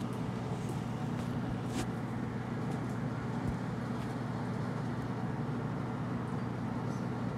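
Steady low machine hum, even throughout, with a couple of faint clicks.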